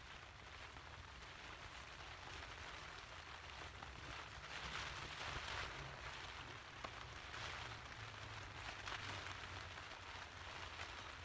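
Rain pattering steadily on the tent fabric, growing louder in two swells around the middle, over a low rumble, with a single sharp click about two-thirds of the way through.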